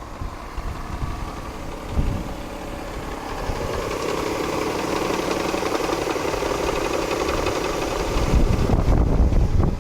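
Ford Probe GT's 2.5-litre V6 idling with a knock, the cold-engine knock that the owner traces to a worn timing belt tensioner. Wind buffets the microphone near the end.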